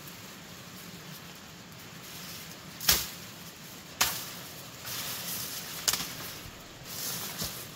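A long-handled curved knife chopping through fern stems and brush, four sharp strokes with the leaves rustling between them, the first stroke about three seconds in being the loudest.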